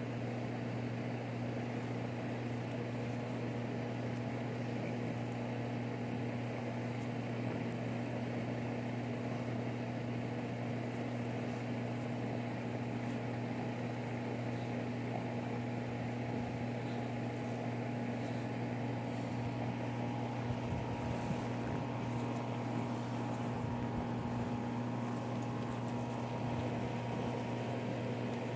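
Steady low mechanical hum of a running motor, with a faint hiss over it and a few soft low bumps about three-quarters of the way through.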